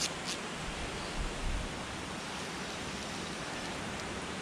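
Steady, even rush of a small river's flowing water.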